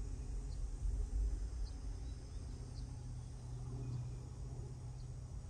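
A low, steady engine hum with a faint high chirp repeating about once a second.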